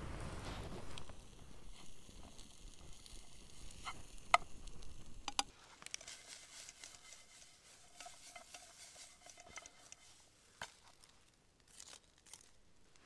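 Camp cooking sounds: a few sharp clicks and knocks of cookware being handled, with crinkling and a faint hiss through the middle.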